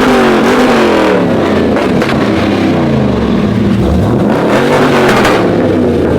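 A car engine revving, its pitch rising and falling several times.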